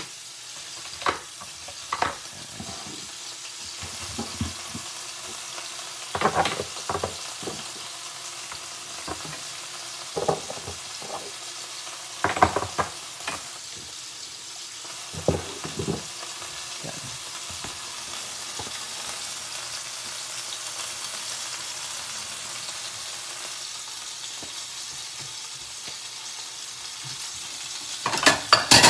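New York strip steak frying in hot oil in a nonstick pan, a steady high sizzle. Brief knocks and clatters break in every few seconds, with a louder cluster near the end.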